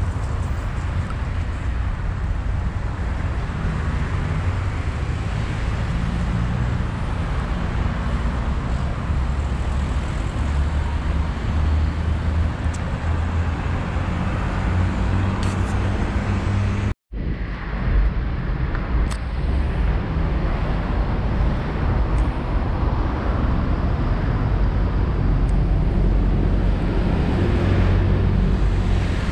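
Steady low rumble of motor-vehicle road noise, broken by a split-second dropout about halfway through.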